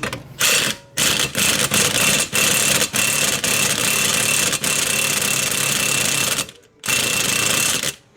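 A power tool runs hard in a string of bursts with brief breaks, carrying a steady high whine. It pauses for about half a second near the end, then runs once more, as it works on a seized outboard cable fitting.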